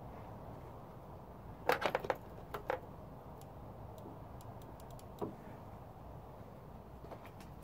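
A quick run of light, sharp clicks and taps about two seconds in, two more just after and a single one near the middle, over a steady low hum.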